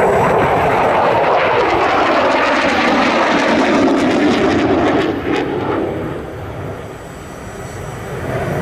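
Eurofighter Typhoon's twin EJ200 turbofan engines roaring as the jet passes overhead, the roar sliding down in pitch, dropping away about six seconds in and then building again.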